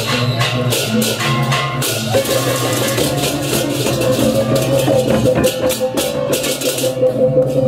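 Balinese gamelan music: metallic pitched instruments holding steady notes over drums, with rapid strokes of small clashing cymbals.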